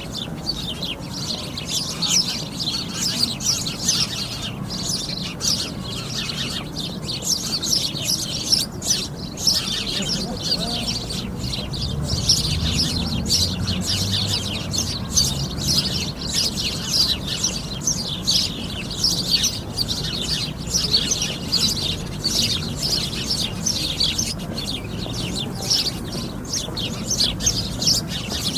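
A flock of sparrows chirping, many birds at once in a dense, unbroken chatter of short, high chirps.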